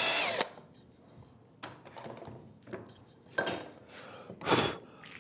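18-volt cordless drill running as it bores into a pine batten, stopping about half a second in. After it come a few faint knocks and rubs of wood being handled on the bench.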